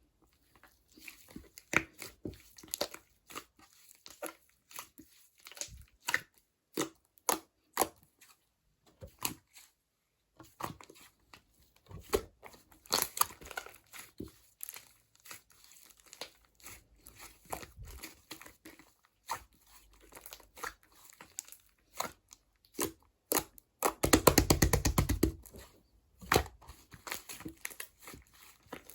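Slime being squeezed and stretched by hand, making a string of sticky pops and crackles. Near the end comes a fast rattling run of pops, the loudest part.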